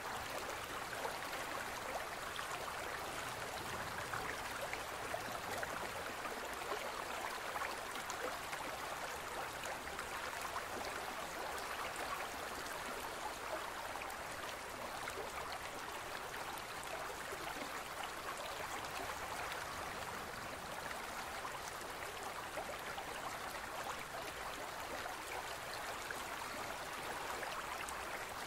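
Gentle stream of water running steadily over rocks, an even, unbroken babble.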